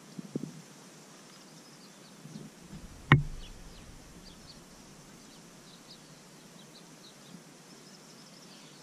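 Faint bird chirps over a steady outdoor background. A single sharp click about three seconds in, with a few soft knocks just before it.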